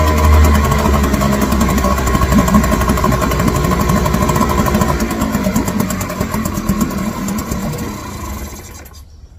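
A 2.5 hp Mariner two-stroke outboard motor running, its fuel problem fixed; the sound slowly drops away from about halfway and dies out near the end.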